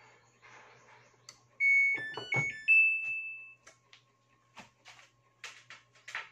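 Samsung top-load washing machine's control panel playing its short electronic power-on tune, a few stepping beeps ending on one longer note. A handful of short clicks follow.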